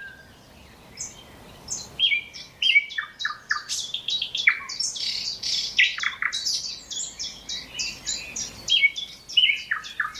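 Nightingale singing a trilling song of quick repeated notes and varied phrases. It is sparse for the first two seconds and then runs on almost without a break.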